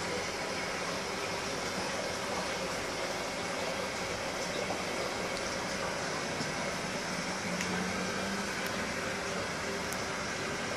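Steady hiss and bubbling of aquarium aeration and circulating water, with a few faint ticks.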